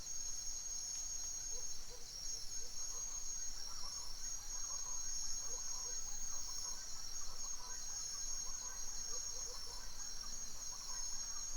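Dense, steady, high-pitched chorus of crickets and other insects, with faint scattered bird chirps beneath it.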